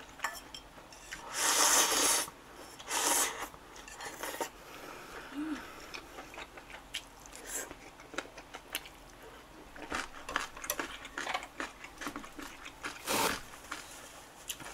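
Instant ramen noodles in broth slurped up in several quick rushes, the longest about a second and a half in and another near the end, with chewing and chopsticks and a ladle clicking on bowls in between.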